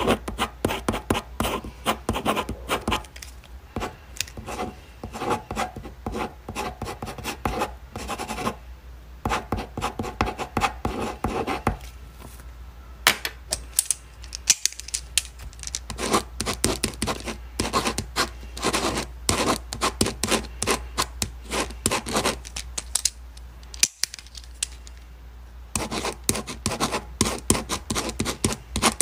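A pen writing on paper: runs of quick scratching strokes, broken by a few short pauses.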